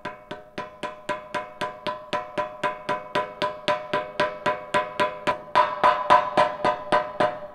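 Rubber mallet tapping a bearing into the steel pivot of a spare tire carrier, a steady run of about four strikes a second, each with a short metallic ring. The blows get harder for the last two seconds, then stop.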